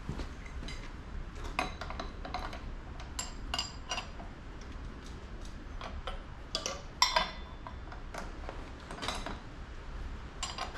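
Irregular metallic clinks and clicks of steel parts and tools being handled at a motorcycle's front wheel hub, where a steel brake mounting plate is being fitted over the brake backing plate. The loudest clink comes about seven seconds in.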